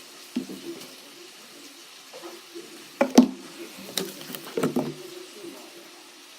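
A few scattered knocks and clatters from objects being handled, the loudest a pair about three seconds in.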